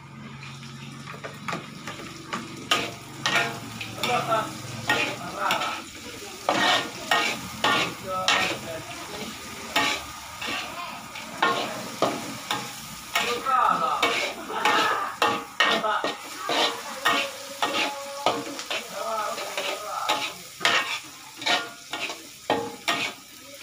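Chopped chilies and aromatics sizzling in hot oil in a wok while a metal spatula stirs them, scraping and clacking against the wok at an irregular pace, about one to two strokes a second. The clacking starts about two seconds in.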